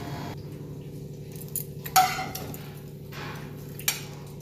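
A flat spatula scraping and clinking against a steel plate a few times, the loudest clink about two seconds in with the plate ringing briefly, over a low steady hum.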